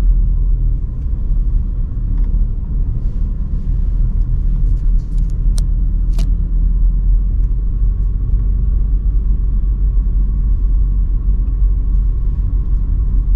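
Steady low rumble of a car driving slowly, heard from inside the cabin. Two sharp clicks come about five and a half and six seconds in.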